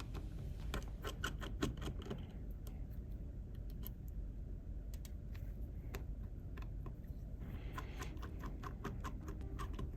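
Small precision screwdriver backing out the phone's midframe screws, with light clicking and ticking of the bit, screws and tools: one run of clicks near the start and another in the last few seconds.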